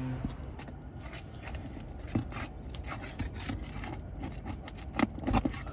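Irregular scraping and clicking of tools and asphalt shingles as roofing nails are pried loose, with a few louder sharp clicks near the end. The shingles are tearing as the nails come out.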